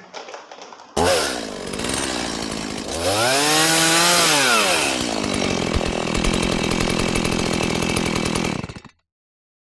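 Motorcycle engine sound effect. It starts abruptly, revs up and back down once, then runs at a steady buzz before cutting off suddenly near the end.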